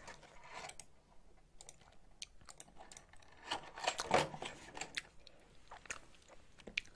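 Close-miked chewing: soft wet mouth clicks and light crunches, with a louder cluster about four seconds in.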